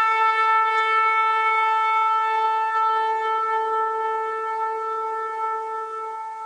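A single held musical note, one steady pitch with its overtones, left ringing on its own after the beat of the rap track stops, slowly fading toward the end.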